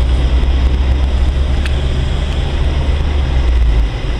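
Car cabin noise while driving: a steady low engine and road drone with tyre hiss. The low drone drops away shortly before the end.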